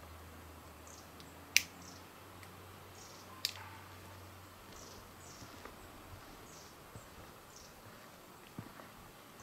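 Daurian redstart giving thin, high, falling call notes about once a second. Two sharp, loud clicks stand out, about a second and a half and three and a half seconds in.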